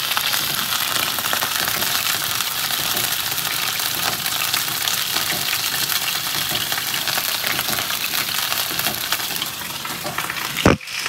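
Sardines with sliced garlic and shallots sizzling steadily in hot oil in a non-stick frying pan, stirred with a spoon. A brief thump near the end.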